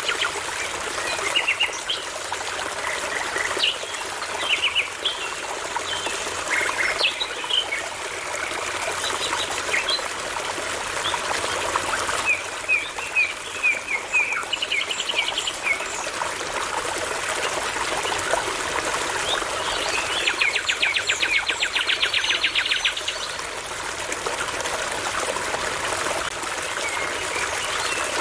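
A brook trickling and babbling steadily, with songbirds singing over it: scattered chirps and short repeated phrases, and a long rapid trill about twenty seconds in.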